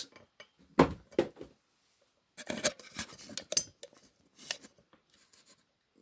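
Light knocks and scraping as small sculptures on wooden bases are handled and shifted on a tabletop: a sharp knock about a second in, then a cluster of clicks and rubbing a couple of seconds later.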